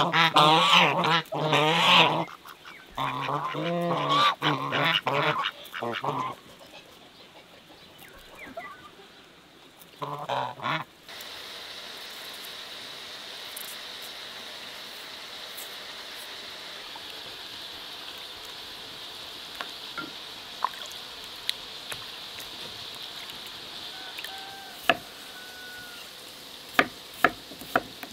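Domestic geese honking, several loud repeated calls overlapping for about the first ten seconds. Then a quieter steady background, with a few sharp knocks of a knife cutting on a wooden board near the end.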